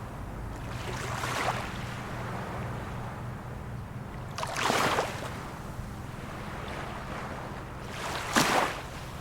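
Small waves of a calm sea washing in, three surges about three to four seconds apart, the last the loudest, over a steady low hum.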